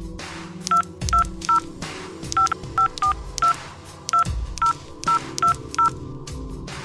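Touch-tone keys on a corded phone handset pressed one after another as a number is dialled: about a dozen short dual-tone beeps at an uneven pace.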